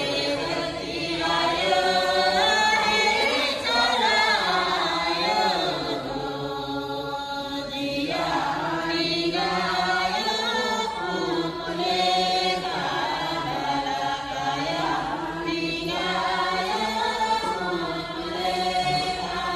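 Several voices singing together in a chant-like melody, held and gliding notes with no pause.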